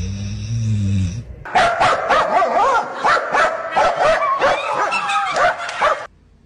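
A low, drawn-out snore lasting about a second. Then, after a short gap, a rapid run of animal yelps and squeals with sharp clicks goes on for about four and a half seconds and cuts off suddenly.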